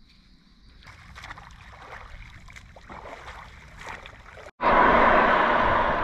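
Faint irregular splashes of someone swimming in calm open water. After a sudden cut about four and a half seconds in, a loud steady rush of wind on the microphone while riding.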